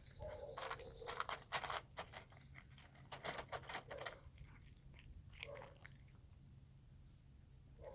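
A cat chewing and crunching its food, in quick bites for the first few seconds, then sparser ones.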